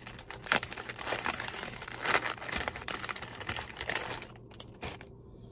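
A plastic cookie wrapper crinkling as it is torn open and handled, in a dense run of irregular crackles that stops about five seconds in.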